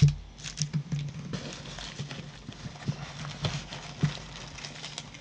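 Plastic-bagged stacks of trading cards in hard plastic holders being handled and set down on a wooden desk: irregular clacks and taps with plastic rustling.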